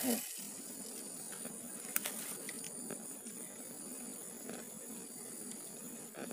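Quiet pond-side ambience: a faint steady high-pitched hiss with one short sharp click about two seconds in.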